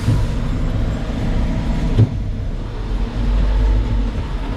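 Terex FD4000 front-discharge concrete mixer truck's DD15 diesel engine running with a steady low rumble as the truck drives, with a single short knock about two seconds in.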